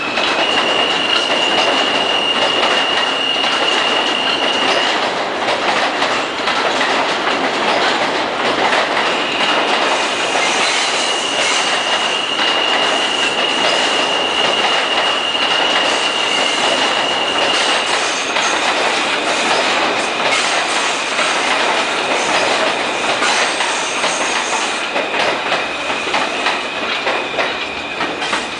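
New York City Subway R160A cars rolling slowly past on elevated track: a steady rumble of steel wheels on rail with clicks at the rail joints. A steady high-pitched wheel squeal stops for a few seconds early on and returns, dropping a little in pitch about two-thirds of the way through.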